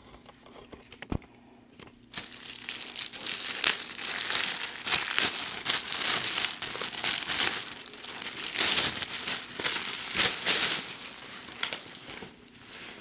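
Clear plastic packaging bag crinkling and rustling as a leather laptop bag is pulled out of it. It starts about two seconds in, after a few light clicks, and swells and fades unevenly until near the end.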